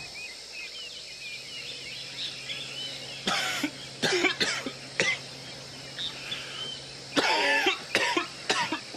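A man coughing in several harsh bouts, starting about three seconds in. Birds chirp faintly before and between the coughs.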